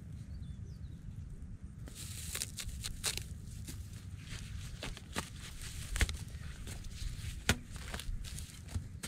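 A metal-bladed digging tool chopping and scraping into hard dry mud: a handful of sharp, irregular knocks, the loudest about six and seven and a half seconds in, over a steady low rumble.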